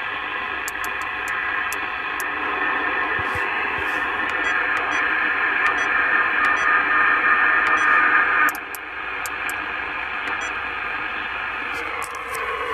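27 MHz CB transceiver in USB sideband mode hissing with band noise and faint steady whistles while its channel knob is clicked through the frequencies. The noise grows louder partway through and drops suddenly a little past eight seconds in.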